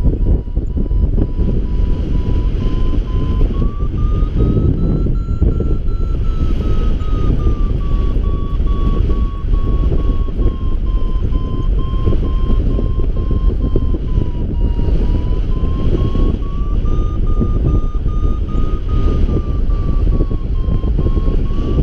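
Paragliding variometer beeping in quick, even pulses, its pitch drifting slowly up and down between about 1 and 1.3 kHz; steady beeping like this signals the glider climbing in lift. Under it, heavy wind rumble buffets the camera microphone.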